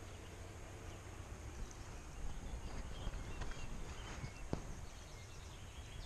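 Faint outdoor ambience heard through the open van: a few scattered bird chirps over a steady low background rush, with a single sharp click about four and a half seconds in.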